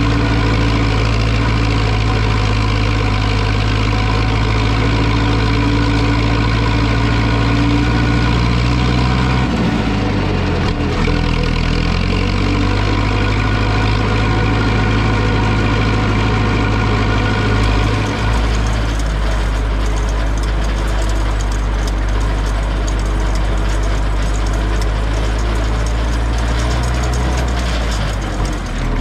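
Zetor 6245 tractor's diesel engine running steadily. Its pitch dips and shifts about ten seconds in, and from about eighteen seconds a rougher, noisier sound joins the engine note.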